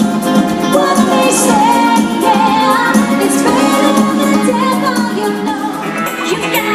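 Pop music with a woman singing the lead melody over a full band backing.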